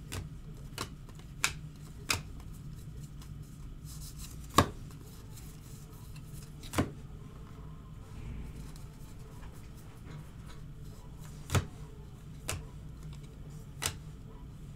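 Trading cards handled by hand: sharp, irregular clicks and snaps as cards are flipped through a stack and set down on the table, about nine in all, the loudest about four and a half seconds in. A low steady hum runs underneath.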